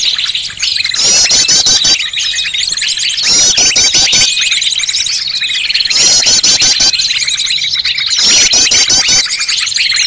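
Bird-lure recording of many small birds' calls layered together: fast high chirps and trilled phrases repeating every second or two over a continuous high twittering, meant to draw wild birds in.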